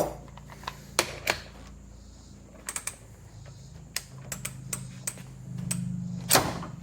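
A few clicks and knocks of a tool being handled. Then a DeWalt DCF513 20V brushless cordless ratchet runs with a low hum for about a second, straining against a bolt torqued to 120 foot-pounds. A sharp snap comes near the end.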